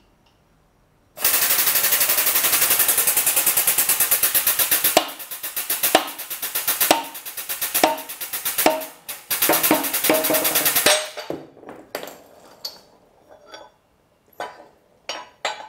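Hydraulic shop press pumping: a loud, rapid rattle of evenly spaced pulses starts about a second in, then turns into slower, uneven pulses with sharp knocks as the ram forces the crank pin out of the crankshaft web, the pressing force reaching about 7 tons. Near the end there are scattered light metallic clicks as the press tooling is handled.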